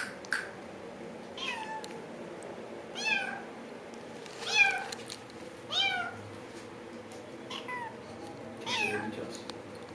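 A cat meowing repeatedly, about six separate meows each sliding down in pitch at the end, the loudest about halfway through.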